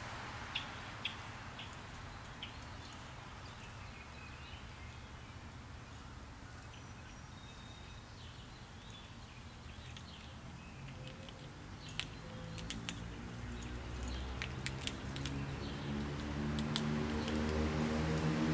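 Scattered sharp clicks and scratches of a small animal, likely a chipmunk, moving about on pavement by a pile of peanuts, coming more often in the second half. A low hum rises underneath from about the middle and grows louder toward the end.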